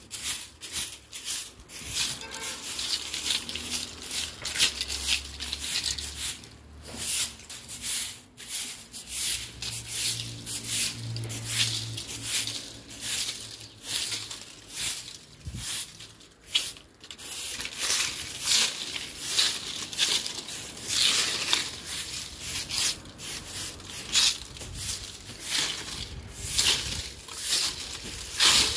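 A broom sweeping dry fallen mango leaves across concrete and dirt ground: quick, repeated scratchy swishes, about two strokes a second, with the leaves rustling and crinkling as they are pushed.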